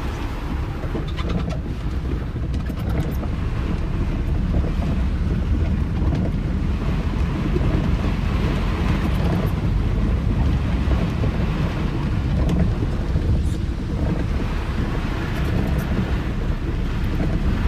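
Inside a moving car in heavy rain: rain hitting the car and the tyres running through deep floodwater on the road, a loud steady low rumble with a hiss of water over it.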